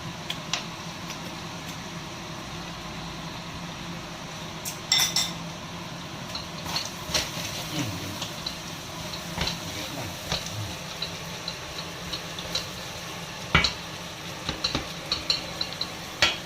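A metal utensil stirring and clinking against a pan of food frying in oil, over a steady sizzle. Scattered clinks, with louder clatters about 5 seconds in and again near 13.5 seconds.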